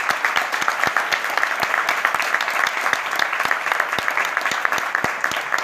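Audience applauding, a dense patter of many hands clapping together.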